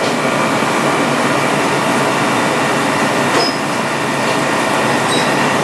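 Steady, even rushing background noise, with a few faint brief high tones about three and five seconds in.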